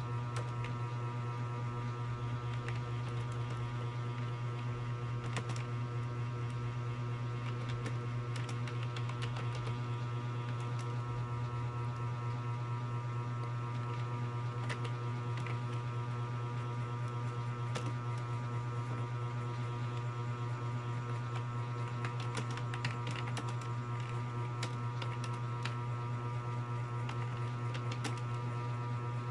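Steady low electrical hum, with faint, irregular clicks of keys being typed on a keyboard.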